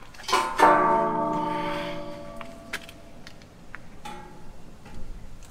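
Steel bumper bar clanging against metal about half a second in, then ringing out with a bell-like tone that fades over about two seconds. A few light clicks follow, and another clang comes at the very end.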